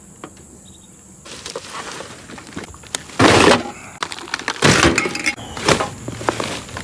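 Objects being handled and knocked about: a run of irregular clatters and rattles, the loudest a few seconds in. Insects keep up a steady high drone behind it.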